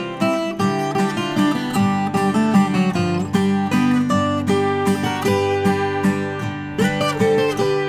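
Viola caipira, the ten-string Brazilian folk guitar, played solo: a plucked melody over bass notes.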